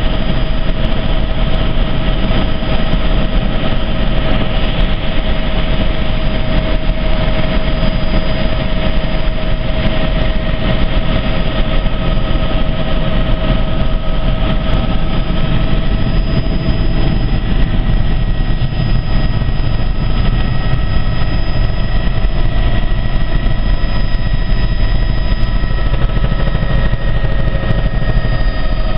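Helicopter in flight: a loud, steady drone of engine and rotor, with a few steady whining tones over a low rumble.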